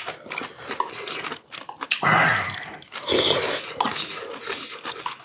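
People chewing and eating, with many small clicks of utensils against dishes and two louder noisy stretches about two and three seconds in.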